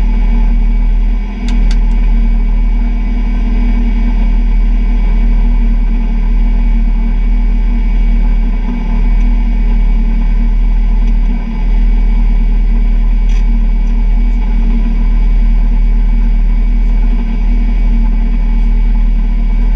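Peugeot 106 rally car's engine running steadily while the car stands still, loud inside the stripped cabin. The revs dip briefly a few times, and there are a couple of short clicks.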